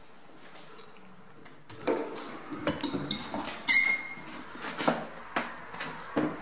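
Footsteps and knocks on a debris-strewn floor, starting about two seconds in, with a few short ringing clinks near the middle.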